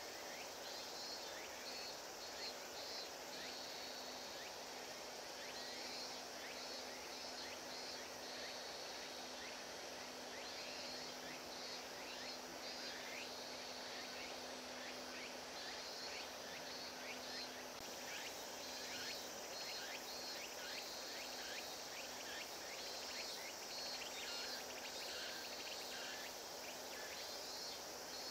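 Outdoor ambience of insects chirping in short repeated trills, over a steady low hum.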